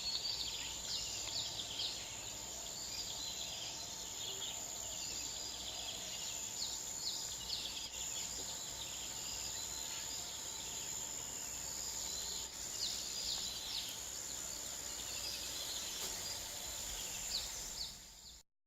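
Rural outdoor ambience: many small birds chirping in quick, short falling notes over a steady high insect drone. It fades out near the end.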